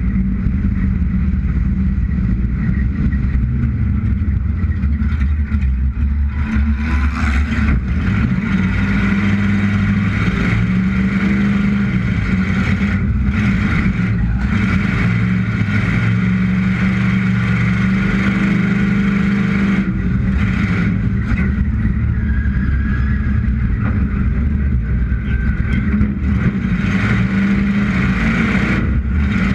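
Roller derby car's engine running hard close to the microphone, its pitch rising and falling as the driver accelerates and backs off around the track.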